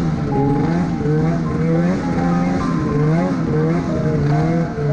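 Arctic Cat Alpha snowmobile's two-stroke engine, its pitch rising and falling again and again as the throttle is worked on and off.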